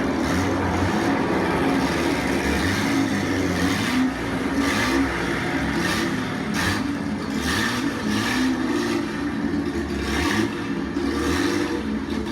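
Sports racing car engines running and revving, their pitch rising and falling as cars go by.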